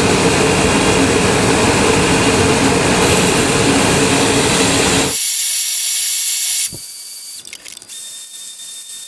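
Power grinder running loud and steady while grinding the bevels of a steel knife blade, then cutting off suddenly about five seconds in. A quieter stretch follows, with a click and a few small handling sounds.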